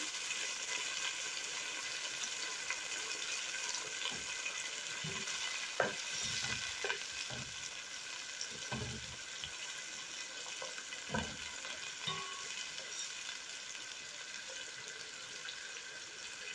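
Sliced carrots and bell peppers simmering in oil and a little water in a granite-coated pan, with a steady sizzling hiss. A utensil stirs through them in the middle, with a few light knocks against the pan.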